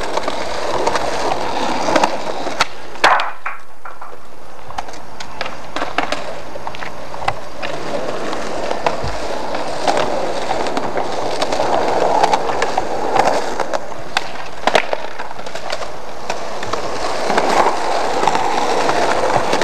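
Skateboard wheels rolling over rough pavement, with the sharp clack of boards striking the ground several times.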